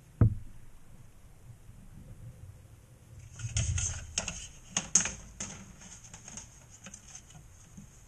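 A sharp knock just after the start, then a quick run of light clicks and taps from about three and a half to five and a half seconds, fewer after that. These are the knocks of a plastic wall box and trim frame being handled and fitted against drywall around a fridge water line.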